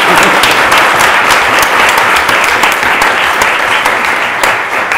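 Audience applauding, easing off slightly near the end.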